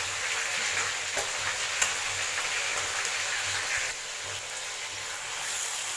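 Mustard-greens paste sizzling in hot oil in a kadai as it is stirred, its moisture cooking off. There is a single sharp tap about two seconds in, and the sizzle eases a little about four seconds in.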